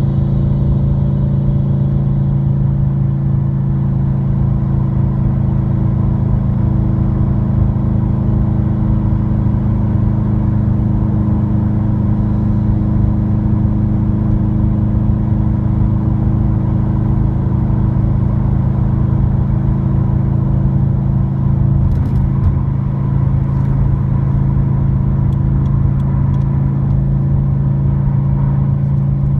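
Subaru WRX turbo flat-four with an Invidia dual N1 cat-back exhaust, heard from inside the cabin at a steady cruise: a low, steady exhaust drone over road and tyre rumble. A few faint clicks come through about three quarters of the way in.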